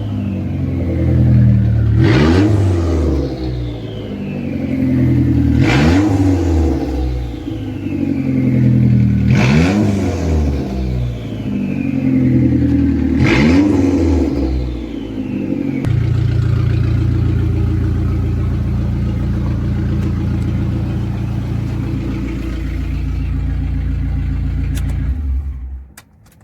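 Turbocharged DOHC Dodge Neon engine, run with loose exhaust piping and no muffler, revved in four short blips a few seconds apart, each followed by a falling whistle. It then settles into a steady idle and cuts off near the end. It echoes in an enclosed garage.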